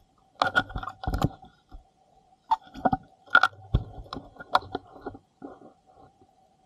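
Underwater sound picked up by a submerged camera: irregular sharp clicks and crunchy crackles, some in quick clusters, over a faint steady tone.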